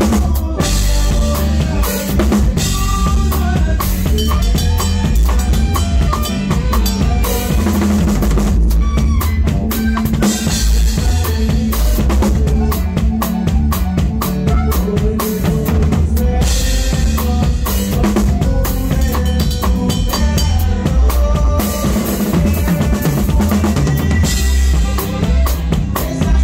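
A live band playing, with the drum kit prominent: bass drum and snare keep a steady beat under bass and sustained melody lines.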